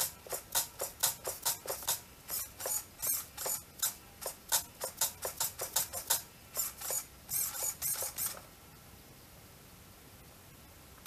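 Small sharp plastic clicks from a Traxxas radio transmitter being worked in the hands, several a second and irregular, stopping about eight seconds in.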